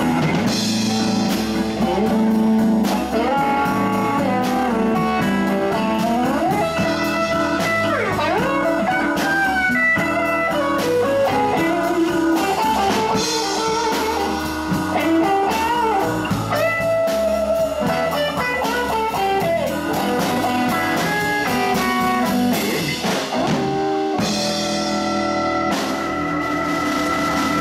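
Live blues band playing an instrumental break: a lead line with bending notes, most likely electric guitar, over electric bass, drum kit and keyboard. Near the end long held notes ring steady.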